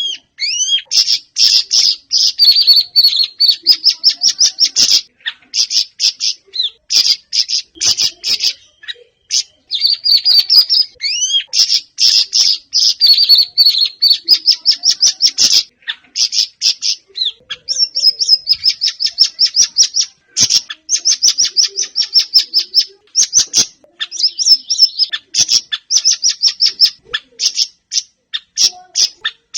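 Siri-siri songbird singing loud, fast runs of high chirping notes, strung into rapid trills with short pauses between phrases: the vigorous 'gacor' song used as a lure to set other siri-siri birds singing.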